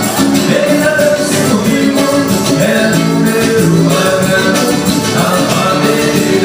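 Band music in a Latin American style, with sustained pitched notes over a steady percussion beat.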